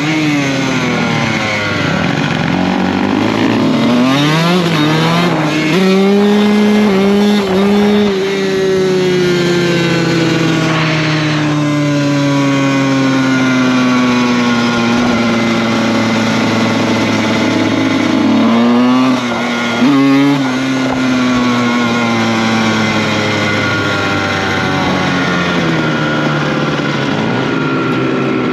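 Dirt bike engine running under way, its pitch rising with the throttle and falling off again several times. Twice it climbs and drops quickly, about a fifth and two-thirds of the way in, and in between it winds down slowly over about ten seconds.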